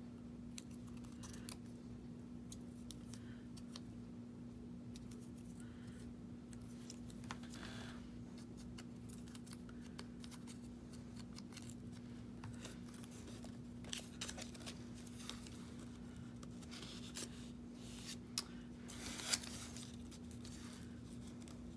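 Quiet snips of small craft scissors trimming cardstock, then light scratches, rustles and taps of paper being handled, over a steady low hum.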